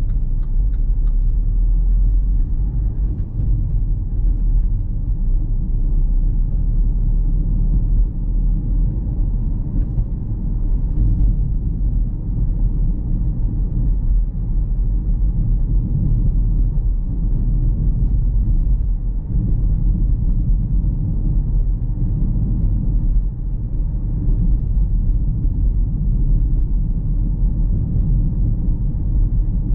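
A car driving along a town road: a steady low rumble of engine and tyres.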